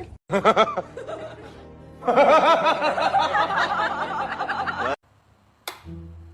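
A burst of laughter, rapid repeated strokes that cut off abruptly about five seconds in, followed by a few plucked notes of background music.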